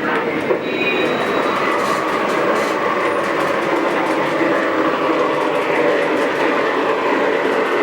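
Lionel Southern dining car's onboard sound system playing a steady recorded ambience of a passenger railroad car under way.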